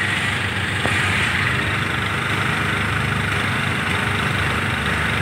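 ATV (quad bike) engine running steadily, an even mechanical hum with no change in pace.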